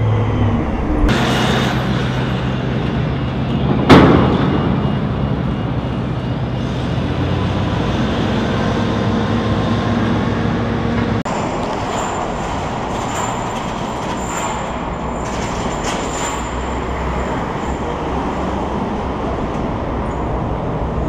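Heavy cargo-handling machinery at a container dock: a steady drone with one loud metallic bang about four seconds in. About eleven seconds in it changes to a different steady machinery noise with faint high squeals.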